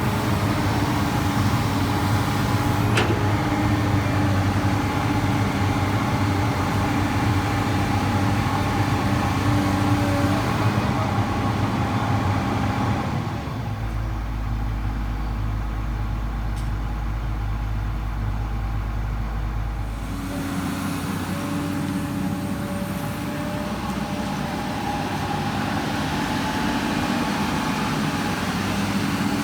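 Komatsu PC200 excavator's diesel engine working steadily while digging. About halfway through it eases off and sounds duller for roughly seven seconds, then picks up again.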